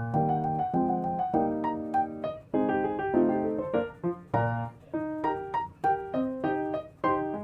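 Background piano music: a light melody of single notes and chords, struck a few times a second.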